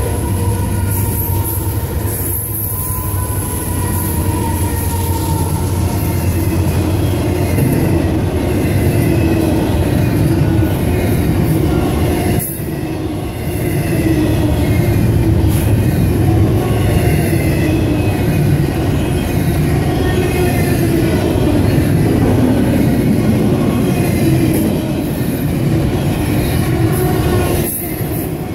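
Union Pacific freight train rolling past close by: the last of its diesel locomotives, then double-stack container cars, with a steady rumble of wheels on the rails and faint high wheel squeal over it.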